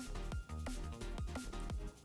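Background music with electronic drums and a steady beat.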